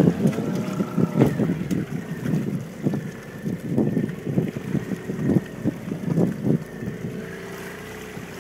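Water slapping against the hull of a small fishing boat in short, irregular bursts, with wind on the microphone and a faint steady outboard motor hum underneath.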